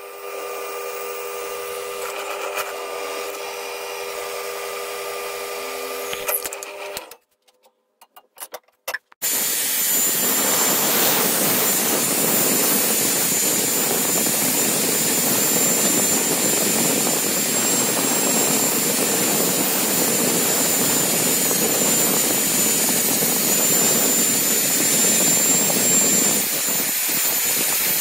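Drill press running with its bit cutting through the steel cleaver blade, a steady hum that stops about seven seconds in. After a brief silence, an electric drill spins a cloth polishing mop against the blade, a loud steady whirr with a thin high whine.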